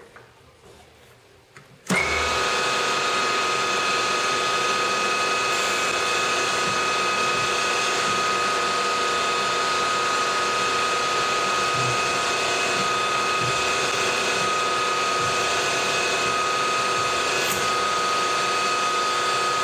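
Milling machine spindle switched on about two seconds in and running steadily with a high whine, turning a small drill bit drilling set-screw holes.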